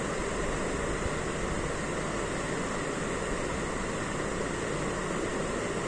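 Steady, even rushing noise with no separate events: background room noise.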